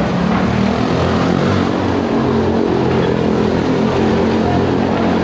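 Motorcycle engine running hard as a stunt rider circles the vertical wooden wall of a wall-of-death drum, giving a steady, loud engine drone.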